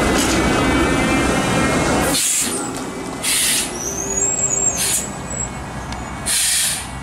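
TTC streetcar rumbling past on its rails with a faint whine, then, after a break about two seconds in, a CLRV streetcar pulling away with four short hisses of air.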